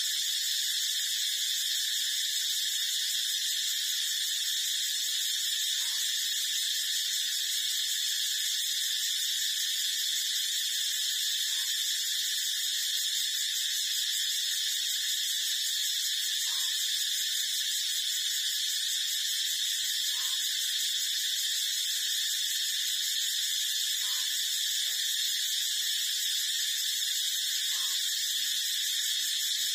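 A steady high-pitched drone, with faint short squeaks every few seconds.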